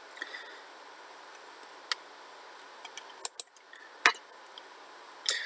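About eight short, sharp clicks at irregular intervals over a faint steady hiss.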